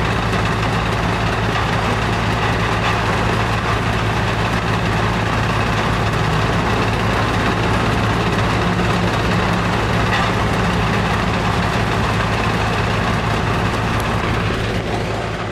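Heavy diesel-powered sand screening and washing plant machinery running at a constant speed, a steady low hum under a wide mechanical rumble. The level drops a little near the end.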